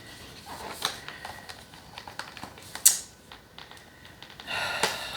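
Hands handling and trying to open an eyeshadow palette's packaging: scattered small clicks and rustles, one sharp click about three seconds in, and a louder rustle near the end.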